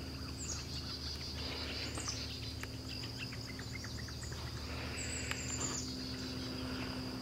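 Faint outdoor background of a steady high insect trill, like crickets, over a low hum, with a scatter of light clicks in the first half.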